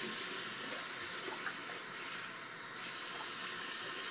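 Bathroom sink tap running steadily, the water splashing over hair held under the stream.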